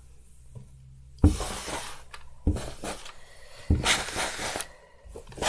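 Steam iron pressed onto damp cheesecloth to steam felted wool: three knocks as the iron comes down, each followed by a short hiss of steam, about a second apart.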